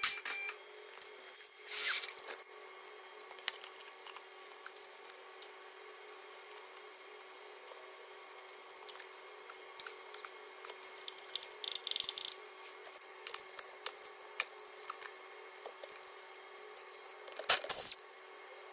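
Hand tools and metal engine parts being handled under the car at the crankshaft pulley: scattered small clicks and clinks over a steady faint hum, with two short, louder rattling bursts about two seconds in and near the end.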